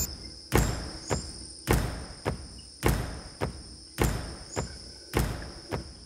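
Rainforest insects keep up a steady high-pitched drone, under a regular beat of sharp thuds, nearly two a second, alternating louder and softer.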